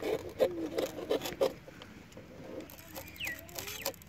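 Short scrapes and crunchy clicks as thin green stalks are pushed through the soft, fibrous wall of a banana-trunk section, mostly in the first second and a half, then quieter handling.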